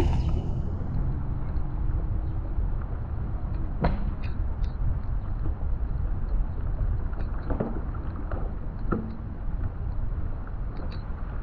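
A car driving slowly along a wet street, heard from a camera on its roof: a steady low rumble of wind on the microphone and tyre noise, with a few faint knocks about four seconds in and twice more later.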